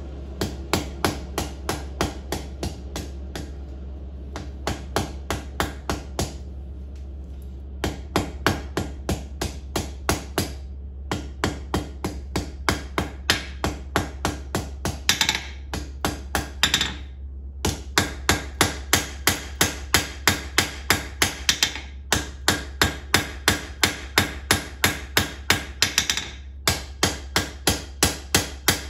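Blacksmith's hand hammer striking red-hot steel of a tong blank on an anvil, in runs of about three blows a second with short pauses between runs.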